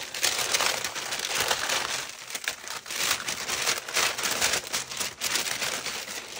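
Crinkling and rustling of a striped mailer bag as it is handled and opened by hand, with many quick crackles and scrapes.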